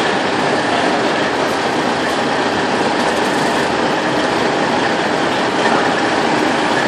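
Semi truck's diesel engine running as the tractor-trailer moves slowly, heard as a steady, even noise with no break.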